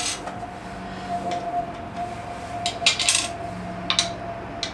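Light metal clinks of screws, washers and nuts and the steel frame of a motorcycle wheel chock being handled during assembly: a few short, sharp clinks, most of them around three and four seconds in.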